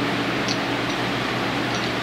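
Steady fan-like hum and hiss of workshop background noise, with two faint light clicks, one about half a second in and one near the end.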